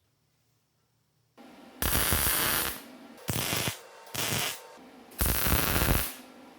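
Four short bursts of MIG welding, tack-welding the 6 mm steel round-bar basket: the first and last about a second long, the middle two shorter.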